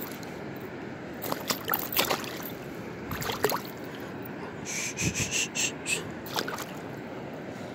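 Water splashing and sloshing as a small Chinook salmon thrashes in a hand in shallow river water, in a few bursts with a quick run of splashes about five seconds in, over the steady rush of the river.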